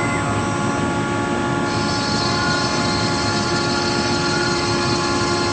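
CNC router spindle running at steady speed while cutting MDF: a steady whine of several tones over a hiss. About a second and a half in, the hiss brightens in the high range.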